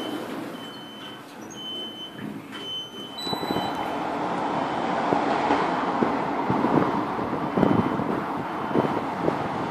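A high electronic beep repeating at uneven intervals for the first three seconds or so, then a louder steady rushing outdoor noise with scattered light knocks.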